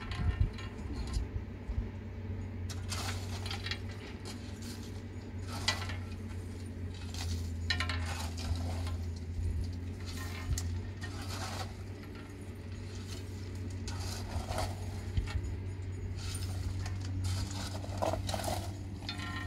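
Scattered clinks and rattles of small hard objects, coming every second or two, over a steady low hum.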